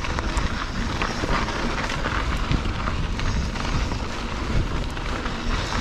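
Mountain bike rolling fast over a dirt trail: tyres crunching on dirt and gravel, with scattered clicks and rattles from the bike and a steady low rumble of wind on the microphone.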